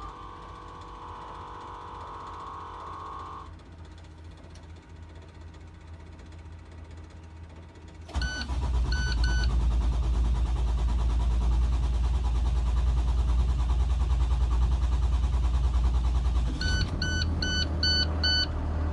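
Cummins 6.7L diesel in a school bus being started hard: a lower rumble while it is cranked, then it catches about eight seconds in and runs loudly. Short dashboard beeps come just after it starts and again, in a quicker run, near the end.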